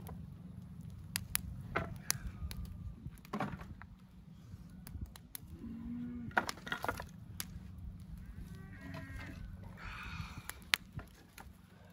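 Scrap wooden boards clattering and knocking as they are tossed onto a burning pile, with crackling from the fire and a steady low rumble of wind on the microphone; the sharpest knock comes near the end.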